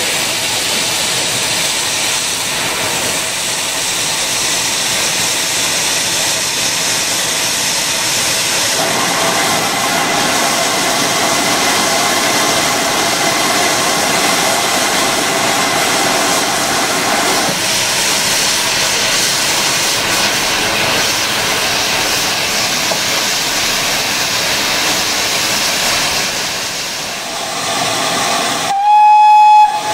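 Steam locomotive standing with a steady hiss of escaping steam. Near the end comes one short, loud steam whistle blast on a single steady note, lasting about a second.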